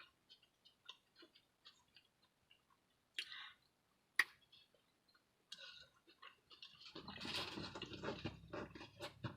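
Close-miked eating sounds from a person eating a Taco Bell chicken Power Bowl: soft chewing and small mouth clicks, with a sharp click about four seconds in and a louder, denser stretch of chewing near the end.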